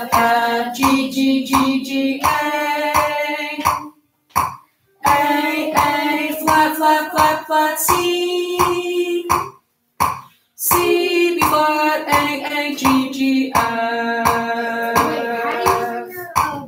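A voice singing the note letter names of a horn exercise on pitch, one name per beat in a steady rhythm, with two short pauses for breath.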